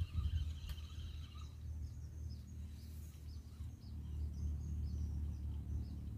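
Wind rumbling on the microphone, with small birds chirping in short, high calls that repeat irregularly from about a second and a half in; before that, a thin steady high note.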